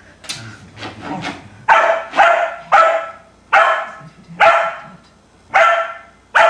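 Shetland sheepdog barking at its own reflection in a mirror: a few softer barks, then seven loud, sharp barks at uneven intervals.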